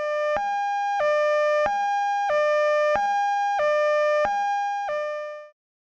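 Two-tone hi-lo emergency-vehicle siren, the Japanese "pee-poh" kind, alternating evenly between a higher and a lower tone about every two-thirds of a second. It fades out shortly before the end.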